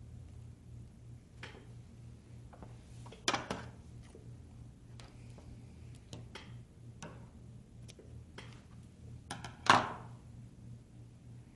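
Scattered light clicks and taps of hands handling a tablet frame and adhesive tape, with two louder knocks, one about three seconds in and one near the end. A low steady hum runs underneath.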